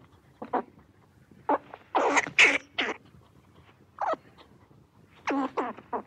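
Squirrel giving short, harsh barking calls, about a dozen in irregular groups of two or three.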